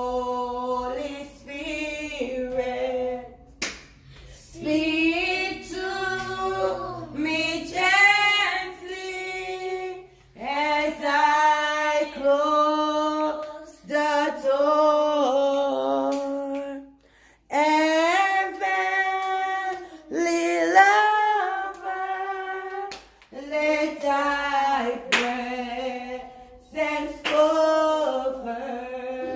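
A woman singing a slow worship song to the Holy Spirit, unaccompanied, in long held phrases with short breaks between them.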